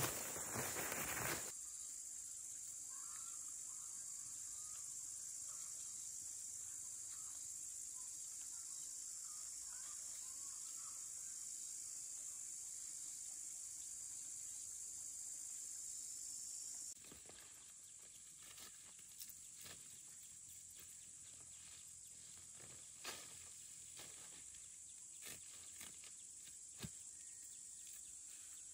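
Steady high-pitched insect chorus with faint bird calls. In the first second or so, and again after the insect sound drops away about halfway through, there are soft rustles and small clicks of hands working among leafy plants.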